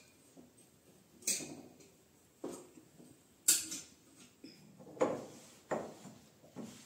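Glassware clinking and knocking as it is handled and set down on the kitchen counter: about six separate clinks and knocks, roughly one a second.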